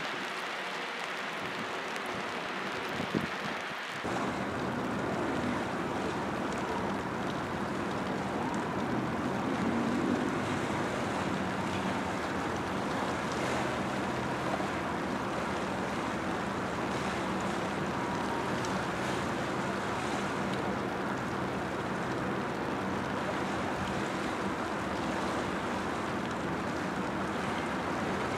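Dockside ambience: steady wind on the microphone and water noise. From about four seconds in, a low, steady machinery hum sits beneath it.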